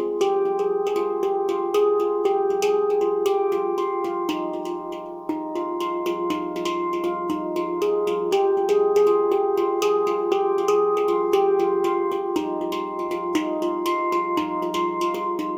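Nimo steel drum tuned to F low Pygmy, played by hand: a steady stream of quickly struck notes that ring and overlap, with a brief lull about five seconds in.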